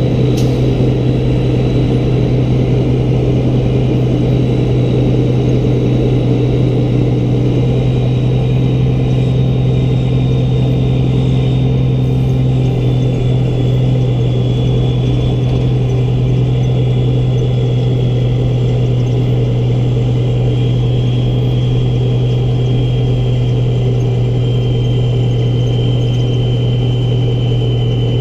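Peterbilt 388 semi tractor hauling a lowboy trailer down the road, heard from a camera mounted on the excavator riding on the trailer: a steady low drone of engine and road noise, with a faint high whine that slowly drops in pitch.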